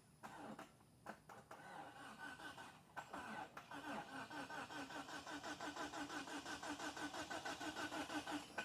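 Mitsubishi Eclipse GST's starter motor, bridged with a screwdriver, cranking the engine while the car is in gear, so the starter drags the car along. A few scattered clicks come first, then the cranking starts about three seconds in as a steady rhythmic churn of about three or four pulses a second, and cuts off suddenly near the end.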